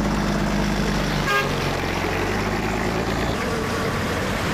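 Roadside traffic: a vehicle engine running steadily, with a brief horn toot about a second in.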